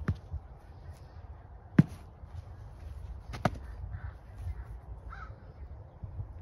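Padded practice swords striking round shields during sparring: three sharp knocks about a second and a half apart, the middle one loudest, over a low rumble.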